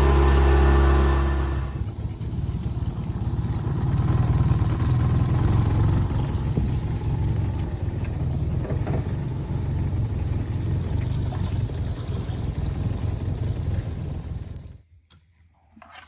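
Small boat outboard motor running steadily with a clear engine tone; about two seconds in the sound cuts to a loud, even rumble of the boat underway. Near the end it drops off abruptly to near quiet.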